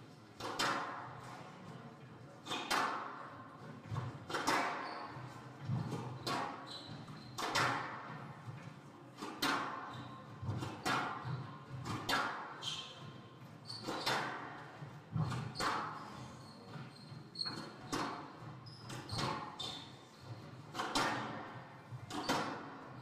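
Squash rally: the ball cracks off rackets and the front wall about once a second, each hit echoing round the hall, with short shoe squeaks on the wooden court floor now and then.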